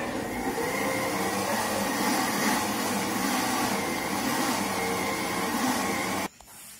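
Countertop blender running steadily, blending thick corn cake batter, then switched off about six seconds in.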